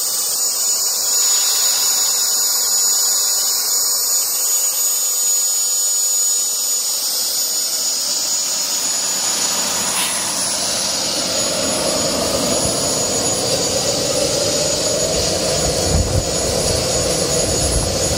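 Homemade propane-fuelled gas turbine built around a large truck turbocharger, running steadily: a high turbine whine over a loud rushing hiss. From about halfway through a deeper rush fills in and grows, with a brief thump near the end.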